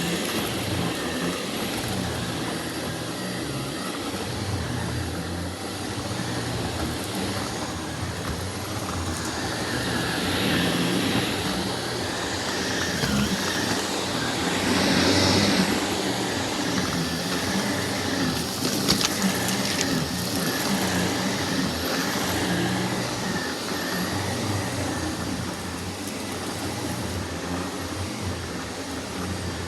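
Shark upright vacuum cleaner running steadily as it is pushed over a rug, its noise swelling and easing as it moves, with a couple of short clicks about two-thirds of the way in.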